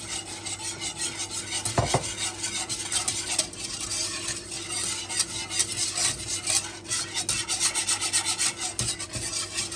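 A utensil stirring and scraping around cookware in rapid, continuous strokes, with one knock about two seconds in. A steady low hum runs underneath.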